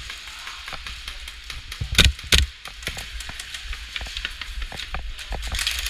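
Scattered sharp clicks of airsoft guns firing around an indoor arena, with two loud knocks close together about two seconds in.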